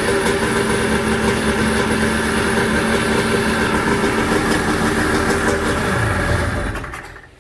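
Jet ski engine running at a steady speed, then slowing and dying away about seven seconds in.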